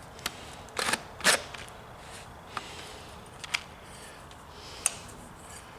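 A few scattered light clicks and knocks of metal being handled, the two loudest close together about a second in; no drill is running.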